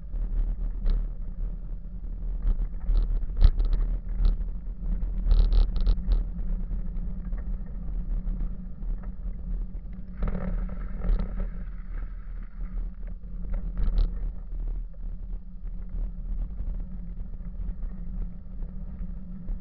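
A bicycle rolling along a rough, wet dirt path, heard from a camera mounted on the bike: a steady low rumble of tyres and frame vibration, with sharp clicks and rattles from bumps in the first few seconds. A rougher patch comes about ten seconds in, and another click follows near the end.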